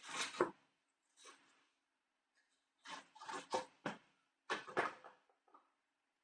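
Several short bursts of rustling and light knocking from hands handling things on a kitchen counter, in four brief clusters.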